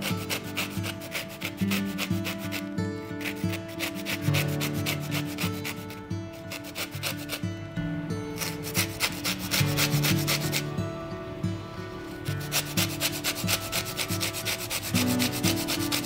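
Lemon peel being grated on a handheld fine rasp grater: quick, repeated rasping strokes in runs, with brief pauses and a longer break about eleven seconds in.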